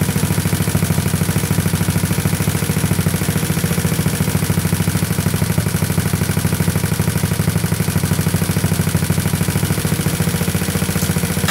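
Big-bore GY6 single-cylinder four-stroke scooter engine with a free-flow exhaust idling with a fast, even putter that stays steady while the carburettor's air-fuel screw is turned in half a turn clockwise.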